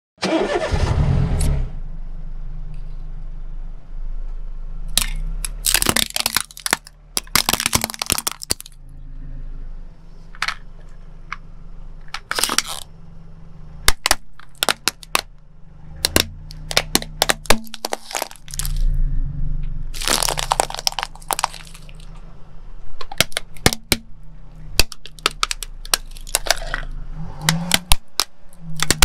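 A car tyre rolling slowly over plastic toys and small household objects, crushing them with many sharp cracks and crunches of breaking plastic, over the steady low hum of the car's engine. It opens with a short, loud rushing burst.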